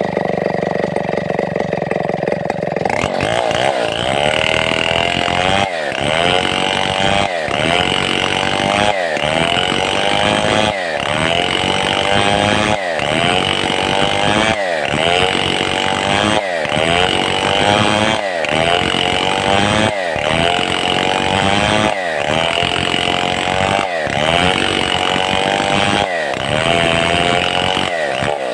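Stihl 070 two-stroke chainsaw running at full throttle while ripping a mahogany log into boards. From about three seconds in, the engine note dips under load and climbs back again in a regular cycle about every two seconds.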